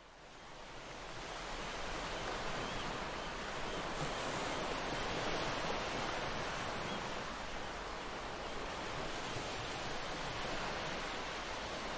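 Steady rushing noise, fading in over the first two seconds.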